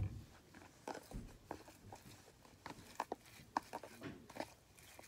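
Plastic spoon stirring a wet mix of snow powder, glue and slime activator in a plastic tub: irregular soft clicks and squishes, a couple a second, with a sharper knock at the very start.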